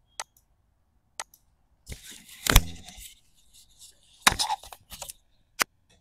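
A handful of sharp clicks and knocks at uneven intervals, the loudest about two and a half seconds in, with a short rustle around it.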